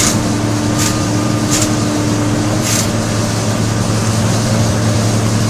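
Heavy equipment's diesel engine running steadily at a constant pitch, with a few short hisses in the first three seconds.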